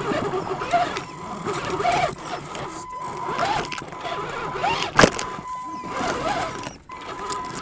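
Radio-controlled Traxxas TXT truck heard from on board as it crawls over rocks and driftwood: drivetrain whine that rises and falls, with rattling and scraping, and one sharp knock about five seconds in.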